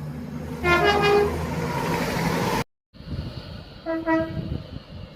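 Two short train horn blasts: first a two-note blast about a second in, over a low steady engine drone, then after an abrupt cut a brief single-note toot about four seconds in.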